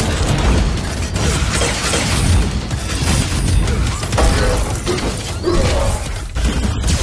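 Action-film sound effects of a fight between giant armoured robots: repeated metallic crashes and shattering mixed with mechanical whirring and clanking, with music underneath.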